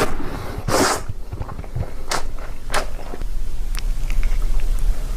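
Close-miked eating sounds: a short crunchy bite just under a second in, then a few sharp clicks and mouth smacks of chewing.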